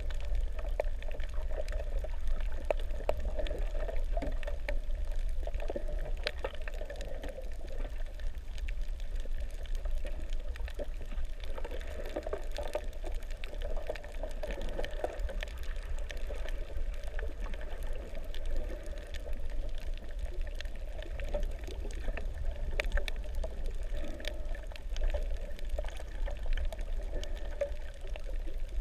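Underwater sound heard through a submerged camera housing: a steady muffled rush of moving water with a low rumble, dotted with many faint scattered clicks.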